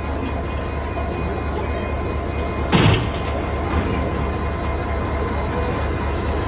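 Steady low hum of a train standing at the platform, with one loud knock about three seconds in as a porter handles an iron-wheeled platform luggage trolley at the luggage van.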